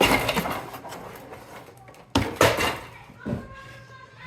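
Children's voices shouting and squealing in bursts, with a sharp knock about two seconds in.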